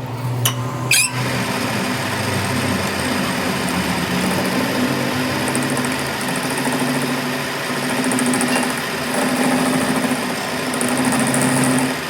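Two sharp clicks about half a second apart, then a machine motor running steadily with a low hum that wavers slightly in pitch.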